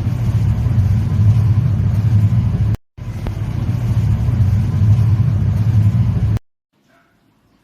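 Airflow from a running ceiling fan buffeting the microphone: a loud, steady low rumble that breaks off abruptly just under three seconds in, resumes a moment later, and cuts off suddenly about two-thirds of the way through.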